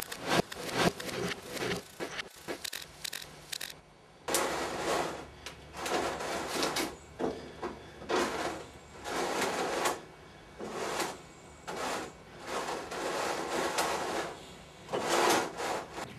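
A quick run of clicks and knocks, then a series of scraping, rubbing strokes, each lasting about half a second to a second, with short gaps between them.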